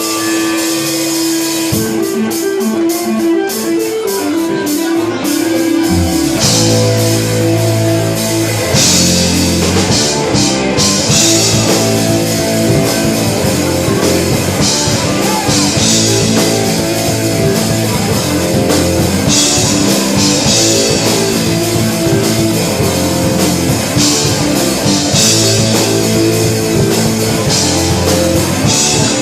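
Rock band playing live, with loud guitars and a drum kit. A guitar riff opens the song, and heavier bass and drums join about six seconds in.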